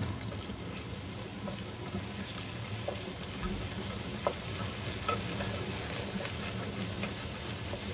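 Spicy bean paste (doubanjiang) sizzling in oil in a wok as a wooden spatula stirs it, with a few light clicks of the spatula against the pan. The paste is being fried in the oil until fragrant.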